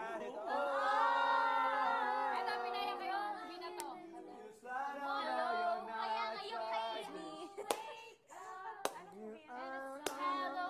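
A group of young people singing a melody, with long held notes, and a few sharp hand claps in the second half.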